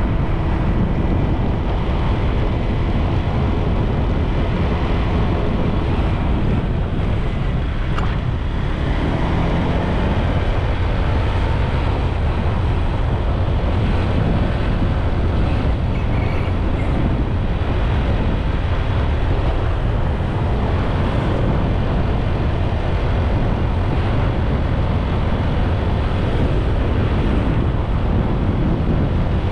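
Steady wind rushing over the microphone of a moving motorbike, with its engine and road noise underneath.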